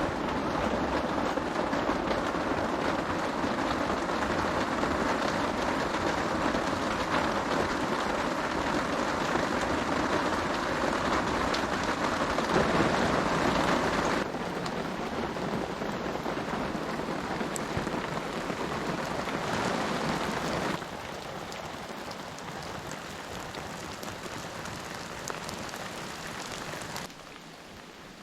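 Heavy rain drumming loudly on a tarp shelter roof, a dense steady hiss. It drops suddenly in level about halfway through, again a few seconds later, and once more near the end.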